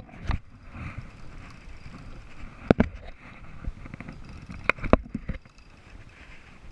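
Sharp knocks and rattles from the fishing rod and spinning reel being worked against a plastic kayak and its rod holder while a hooked sailfish pulls, over steady wind and water noise. There is one knock at the start, then two close pairs a couple of seconds apart.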